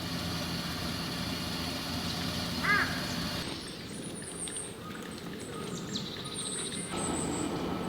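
Steady low rumble of distant vehicle traffic, with one short animal call nearly three seconds in.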